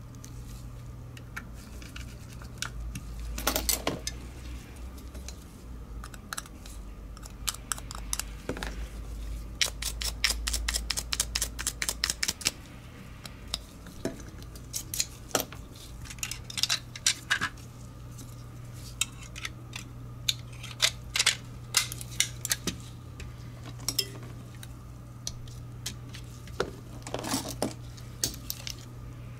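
Small plastic mouse parts and tiny screws clicking and tapping as a disassembled wireless mouse is handled on a silicone mat, with a quick run of rapid clicks about ten seconds in, over a steady low hum.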